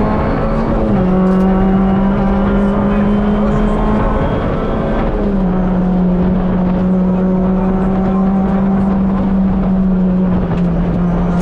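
Rally car engine running hard at high, fairly steady revs, heard from inside the cockpit over constant road and tyre noise. The engine note dips slightly about a second in and again around five seconds in.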